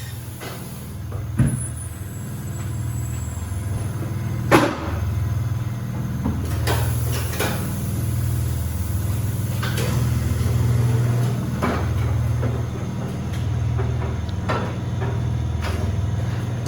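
Tire shop machinery running with a low, steady, gently throbbing hum, with several sharp knocks; the loudest comes about four and a half seconds in.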